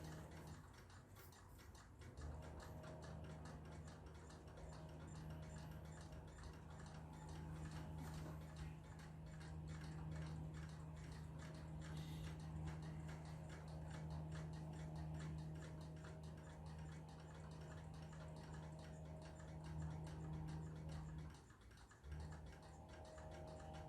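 Faint room tone: a low steady hum with quick, faint, regular ticking, briefly dropping out near the end.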